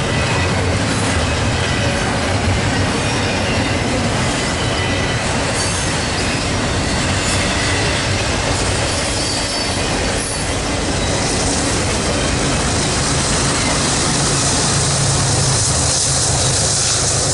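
Railroad cars rolling past, steel wheels running on the rails with thin, high wheel squeals.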